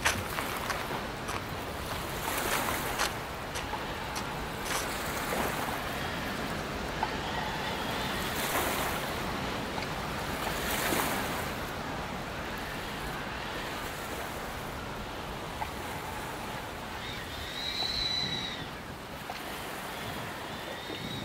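Sea waves washing on a shore with wind, a steady rushing noise that swells now and then. A faint high whine rises and fades near the end.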